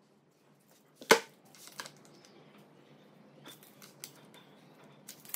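A sharp click about a second in, followed by lighter clicks and faint scraping, as a tape measure and pencil are handled against a wooden cabinet door. A few more small clicks come near the end.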